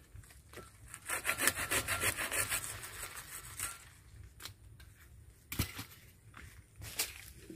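Hand saw cutting into a storm-broken jackfruit branch: a quick run of even strokes for about two and a half seconds, then a few separate sharp knocks.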